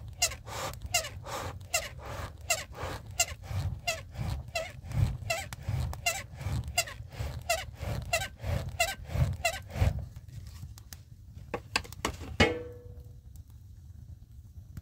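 Quick, regular strokes with a metallic ring, about three a second, stopping about ten seconds in. A couple of seconds later comes one louder clang that rings on briefly.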